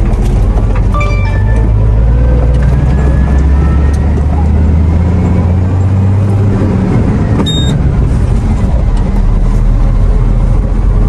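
Cab interior of a loaded truck under way: a steady, loud low engine and road rumble, with a faint whine rising over several seconds. A short tone sounds about a second in, and a brief high beep comes near the middle.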